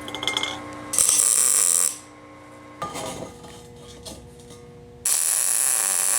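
Power tools working steel: clattering, then two loud stretches of hissing cutting or grinding noise, the second starting about five seconds in.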